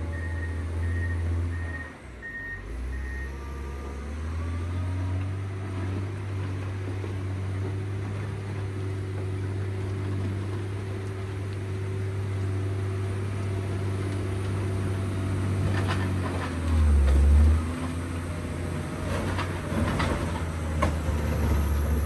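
Diesel engine of a John Deere 670 GP motor grader running under load, its revs dropping and rising. A reversing alarm beeps for the first few seconds. There is a brief loud surge about two-thirds of the way in and a few clunks near the end.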